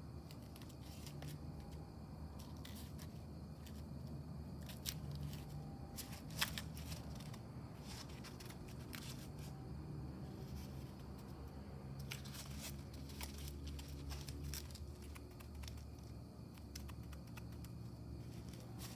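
Cardboard crinkling, creaking and clicking as a hand-made cardboard pistol prop is handled and flexed, with one sharp snap about six seconds in. A low steady hum runs underneath.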